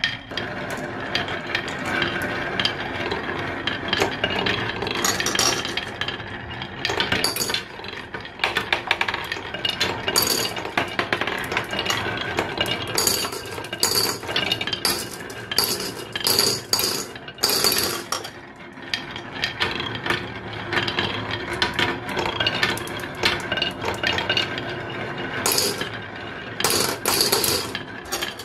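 Glass marbles rolling down carved wooden zigzag marble-run boards: a steady wooden rolling rumble, with frequent sharp clicks as the marbles hit the bends of the track and each other.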